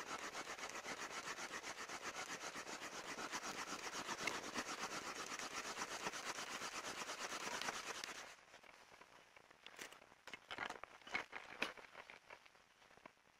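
Bamboo fire saw: a bamboo piece rubbed rapidly back and forth across a notched split bamboo in quick, even strokes to build heat for a friction-fire ember. The sawing stops abruptly about eight seconds in, followed by a few light knocks and taps.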